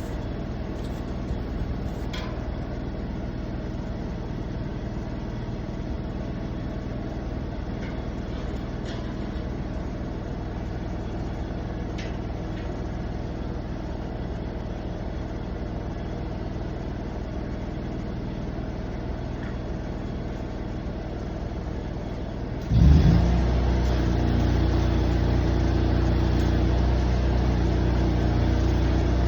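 An engine running steadily; about 23 seconds in it suddenly revs up and keeps running faster and louder.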